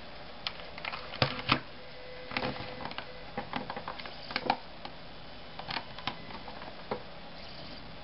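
Irregular small plastic clicks and taps as a portable CD player is handled and its buttons and switches are pressed.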